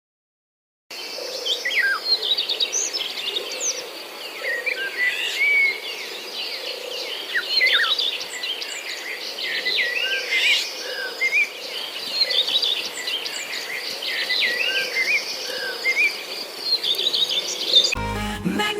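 Many birds singing at once, a dense chorus of overlapping chirps, trills and quick whistled notes that starts about a second in. Music cuts in near the end.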